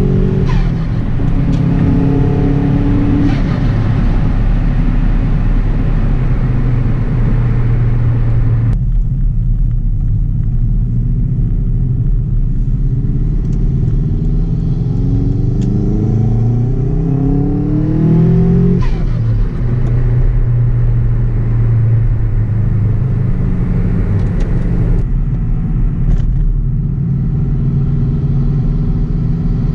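Subaru Impreza WRX's turbocharged EJ207 flat-four running through a 3-inch exhaust under way. The engine note climbs steadily under acceleration for several seconds, then drops sharply at a gear change about two-thirds of the way in and settles to steady running.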